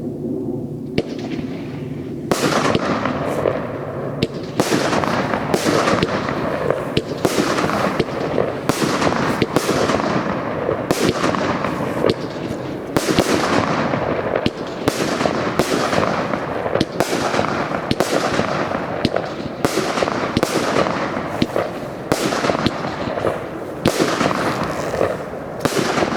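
Crown 500 consumer fireworks cake firing its shots: loud bangs in quick succession, one or two a second, over a continuous haze of noise, starting about two seconds in.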